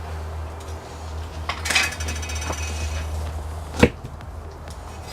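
Workshop tool noise: a steady low hum with metallic clattering and ringing, then a single sharp knock nearly four seconds in, after which the hum drops away.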